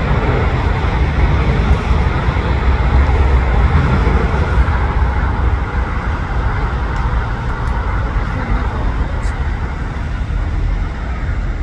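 Airbus A380-842 jet airliner climbing out after takeoff, its four Rolls-Royce Trent 900 turbofans making a loud, deep, steady rumble that eases off slowly in the second half as the aircraft pulls away.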